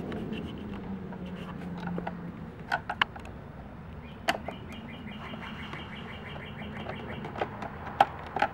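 Screwdriver clicking and scraping on the screws and plastic mounting plate of a Lexus IS250 side mirror as the screws are backed out, with sharp clicks about three seconds in, around four seconds and near the end. Over the middle a bird chirps in a quick, even series for about three seconds.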